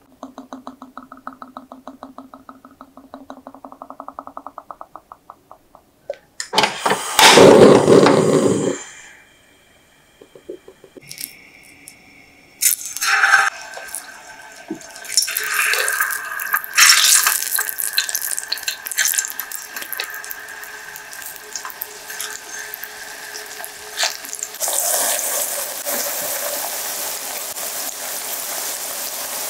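Cooking oil pouring from a bottle's spout into a frying pan in a thin, rhythmic trickle. After a loud rush of noise, banana slices go into the hot oil and sizzle as they deep-fry, the sizzle growing fuller near the end as more slices are added.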